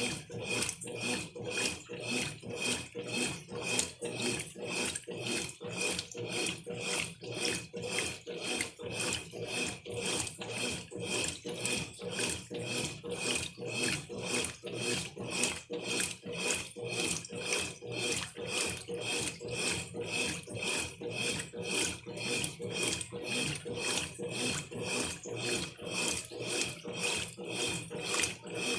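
Brastemp Ative 11 kg top-loading washing machine agitating a very full load in turbo mode. The agitator swishes and rubs the clothes and water about twice a second in a steady rhythm. Turbo is used to force the packed load down into the water.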